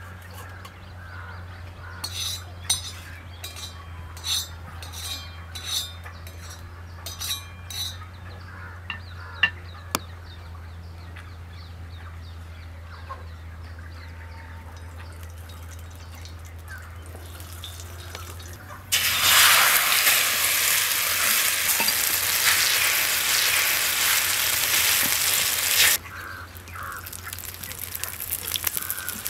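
A metal spoon beats an egg mixture in a steel plate, clinking against it about nine times over several seconds. About 19 seconds in, the mixture hits a hot pan and sizzles loudly for several seconds, then fries on with a quieter sizzle.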